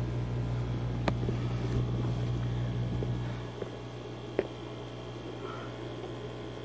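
Steady low electrical hum with a faint noisy background that drops a little about three seconds in. Two faint taps come about a second in and about four seconds in.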